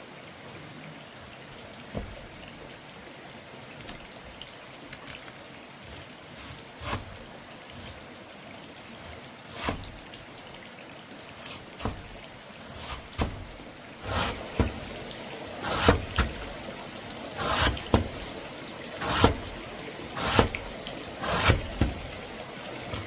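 Water splashing in a series of short pours, sparse at first, then about one a second and louder through the second half.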